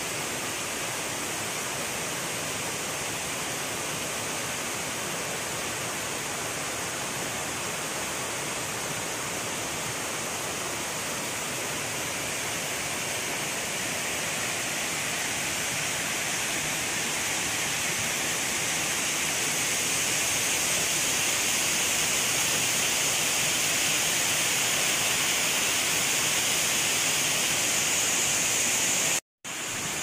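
Steady rush of falling and running water from a waterfall and the rocky stream below it, growing louder in the second half as the rapids come closer. It cuts out for a moment near the end.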